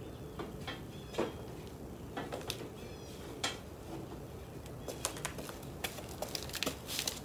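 Scattered light clicks, taps and knocks of metal parts being handled as a rear fender is test-fitted to a mini chopper frame, with a quicker run of sharper clicks near the end.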